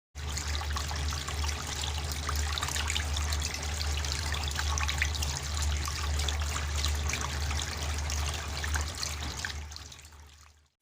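Water trickling and splashing down a cement waterfall fountain, with many small droplet splashes over a steady low hum. It fades out near the end.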